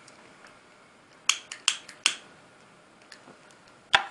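Three sharp clicks about half a second apart, then one more near the end.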